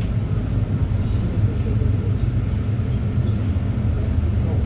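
City bus engine and running gear giving a steady low rumble, heard from inside the bus.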